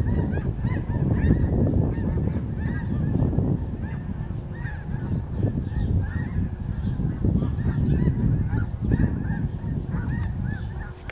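A large flock of Canada geese honking in flight overhead, many short calls overlapping without a break, over a steady low rumble.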